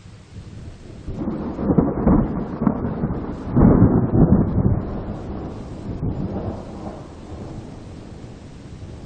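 A roll of thunder over steady rain. The rumble swells about a second in, peaks twice with crackling, then dies away slowly under the even hiss of the rain.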